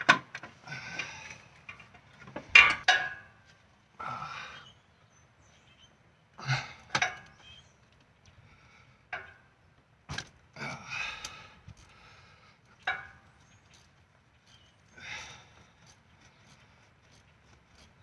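Hand tools clinking and scraping on metal in a car's engine bay: a socket wrench on an extension is worked at a spark plug that is hard to get out. The sound comes in short, irregular bursts with quiet gaps, and the sharpest clink is about two and a half seconds in.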